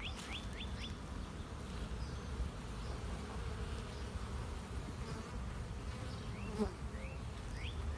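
Honeybees buzzing steadily as foragers fly in and out of a hive entrance, bringing in pollen. A bird's quick falling chirps come in a run at the start and again near the end.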